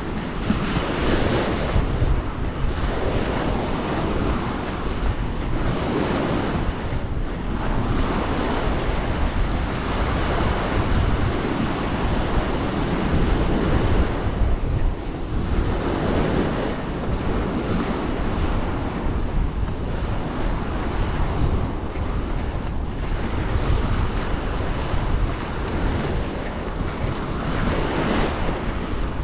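Small waves breaking and washing up a sandy shore, swelling and falling back every few seconds, with steady wind buffeting the microphone.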